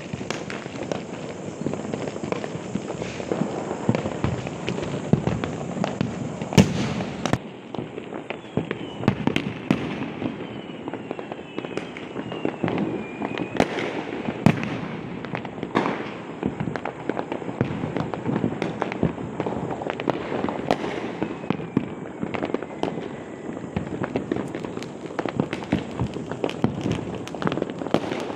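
Firecrackers bursting in a dense, continuous crackle of sharp pops, with a louder bang about six and a half seconds in. Several falling whistles of rockets run through the middle.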